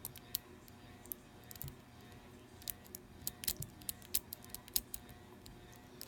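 Lock picking a Master Lock No. 3 pin-tumbler padlock with a Bogota rake and tension wrench: irregular small metallic clicks and ticks of the pick working the pins, coming thickest in the middle stretch.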